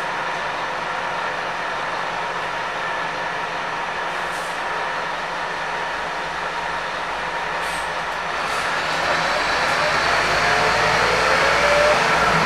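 Scania K230UB bus engine, a 9-litre five-cylinder diesel, heard from inside the saloon, running steadily with body and road noise. From about nine seconds in it grows louder with a rising note as the bus accelerates.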